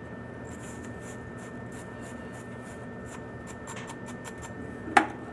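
Copper plumbing fitting being scrubbed clean before fluxing: a run of short, light scratching strokes, with one sharp click near the end.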